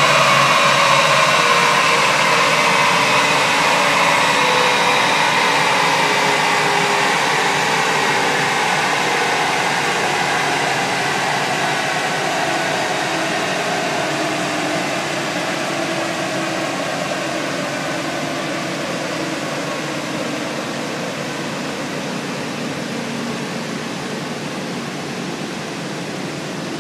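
Chassis dynamometer rollers and the Volkswagen Golf's drive wheels spinning down after a run: a whirring whine that slowly falls in pitch and fades.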